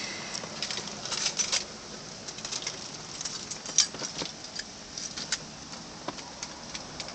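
Scattered light clicks and rubbing over a steady hiss: handling noise of a hand-held phone camera.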